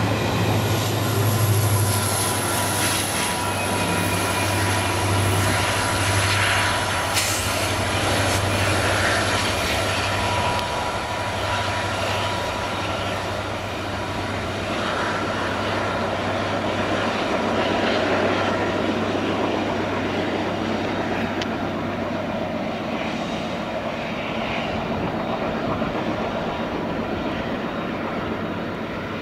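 Loaded freight wagons rolling past on the adjacent track, a steady rumble of wheels on rail with a few knocks. After about ten seconds this gives way to the drone of an approaching WDG4 diesel locomotive's two-stroke V16 engine, hauling a freight train.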